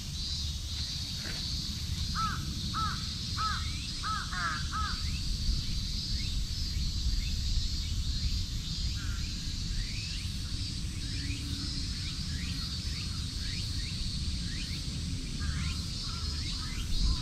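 A crow cawing five times in quick succession about two seconds in, each caw short and evenly spaced. Under it runs a steady high buzz, with short chirps later on.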